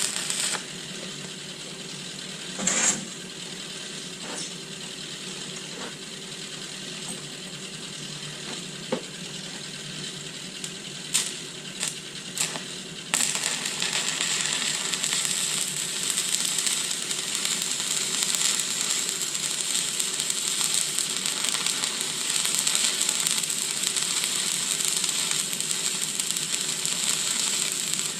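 A few sharp metallic clicks and taps. Then, about thirteen seconds in, a stick-welding arc strikes and runs with a steady frying crackle as a 2.4 mm electrode is weaved along the joint at about 80 amps.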